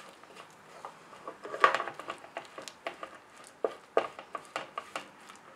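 Wooden spatula scraping and tapping against a non-stick pan while stirring chopped nuts coated in sticky sugar syrup. It comes as irregular short scrapes and clicks, the loudest about one and a half seconds in.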